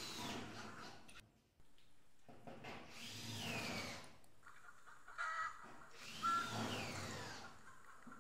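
Cordless drill driving screws through metal roofing panel into a wooden frame, three runs, the motor's whine falling in pitch as each screw bites and seats.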